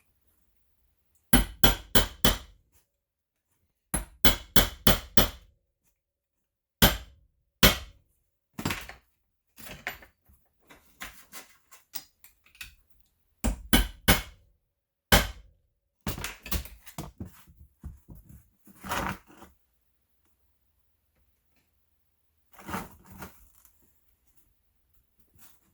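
Workshop knocking while fitting a drill hook to a leather tool belt: runs of four or five quick, sharp strikes like light hammer taps, a few single hard knocks, and lighter clicks and rattles between.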